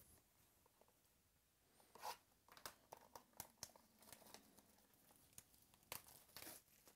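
Faint tearing and crinkling of plastic shrink-wrap being peeled off a gold-bar-shaped trading-card box, a run of short crackles starting about two seconds in.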